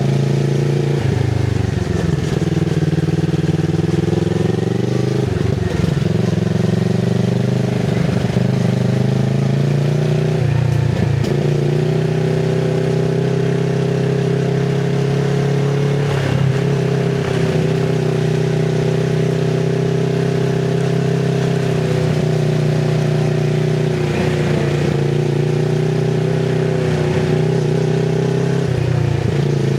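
Kawasaki Z650RS parallel-twin engine through an IXIL MK2 full exhaust with dB killer, running at a mostly steady engine speed while riding, with brief dips and changes in the note every few seconds.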